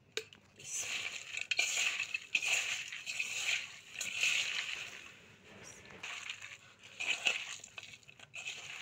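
A hand squeezing and kneading oiled chopped onions and spices in a metal bowl: wet squelching and sloshing in repeated strokes, loudest in the first few seconds, with another strong squeeze about seven seconds in.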